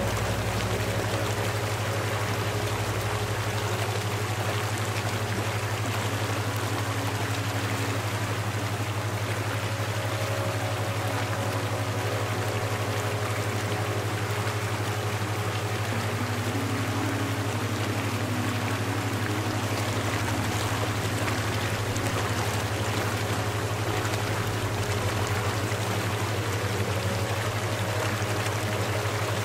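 Steady rushing-water ambience, like a flowing stream, with a low constant hum and a few faint held tones underneath.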